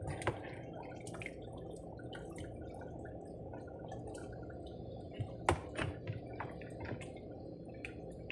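A pot of pepper stew bubbling at the boil, a steady low bubbling with many small pops, and a couple of sharper clicks about five and a half seconds in.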